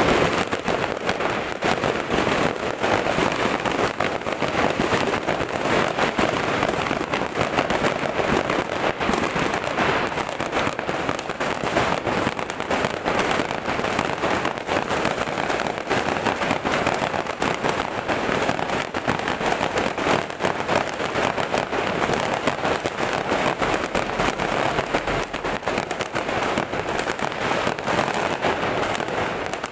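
Many fireworks and firecrackers going off at once: a dense, unbroken crackle of overlapping pops.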